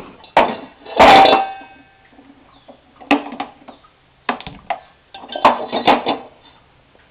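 Metal cookware knocking and clanking, about half a dozen separate knocks; the loudest, about a second in, rings briefly like struck metal.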